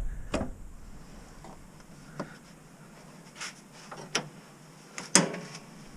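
Scattered light clicks and knocks, about six in all with the loudest near the end, from hands working the wiper motor's harness connector and the parts around it at the cowl under the hood.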